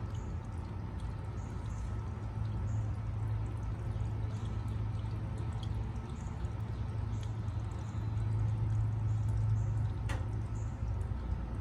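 Water pouring and dripping over a steady low hum, with small scattered ticks and one sharp click about ten seconds in.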